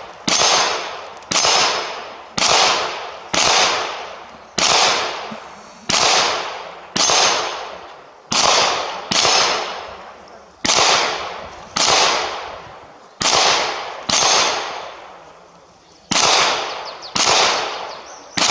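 Gunshots fired one after another, roughly one a second, about sixteen in all. Each sharp crack is followed by a long echoing decay.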